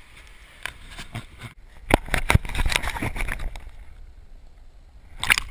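Knocks and crackling scrapes as the camera falls and tumbles through brush and twigs onto the ground: a few single knocks, then a dense run of them for about a second and a half, and one more loud scrape near the end.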